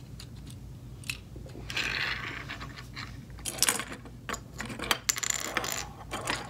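Plastic Lego bricks clicking and clattering against each other and on a wooden tabletop as pieces are handled and snapped together: a scatter of sharp, irregular clicks.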